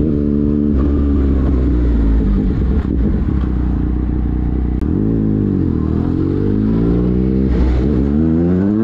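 Motorcycle engine running under way, its revs dipping and climbing again around the middle, then rising steadily near the end as it accelerates.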